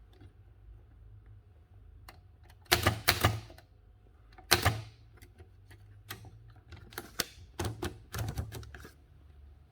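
Seidel & Naumann Erika folding typewriter's mechanism clacking: sharp metallic strikes in uneven clusters, the loudest about three and four and a half seconds in, then a quicker run of strikes near the end.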